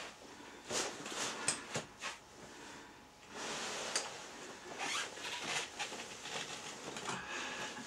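Rubberized protective suit and apron rustling and scraping in irregular bursts as the wearer moves through sit-ups on an exercise frame.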